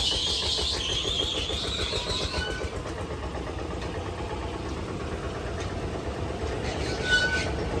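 Engine-driven fairground ride machinery running with a steady, even drone. A high wavering sound sits above it for the first two and a half seconds, and a brief high squeak comes near the end.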